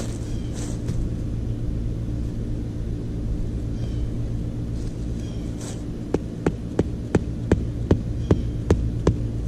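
A tent peg being hammered into the ground: about nine sharp knocks, roughly three a second, starting about six seconds in. A steady low hum runs underneath.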